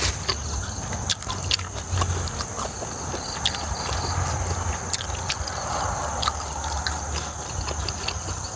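A person chewing a mouthful of raw pork blood salad with cooked offal close to the microphone: wet smacking with many small clicks.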